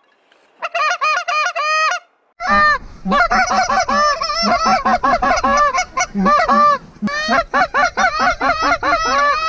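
Hand-blown mallard duck calls: a short run of quacks about a second in, then after a brief pause two or more callers overlapping in a dense, steady run of rapid quacks, calling hard to draw circling ducks lower. Wind rumbles on the microphone under the later calling.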